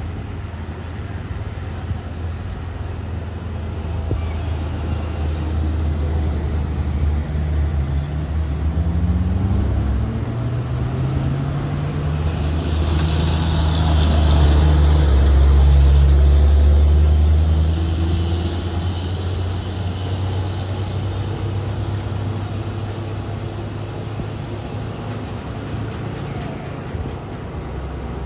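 Heavy truck engine pulling under load, its pitch rising twice as it revs up, and loudest around the middle as it passes close, with a rush of hiss at its peak.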